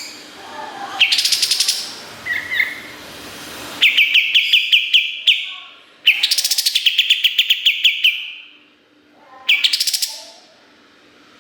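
White-shouldered triller (kapas tembak) singing: four loud bursts of fast, rapidly repeated trill notes, the longest lasting about two seconds, with softer chirps between them.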